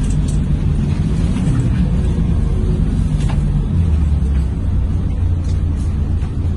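Mercedes-Benz OC500LE city bus engine and drivetrain running on the move, heard from inside the passenger cabin as a steady low rumble that turns to a deeper drone about four seconds in. A few light clicks sound over it.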